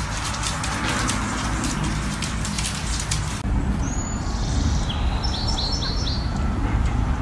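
A dense crackle of small clicks for about three seconds, then birds chirping, with a quick run of four chirps, over a low steady rumble.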